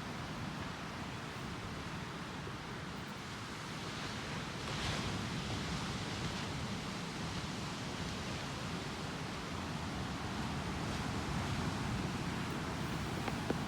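Steady wash of ocean surf with wind, swelling briefly about five seconds in, with a faint click near the end.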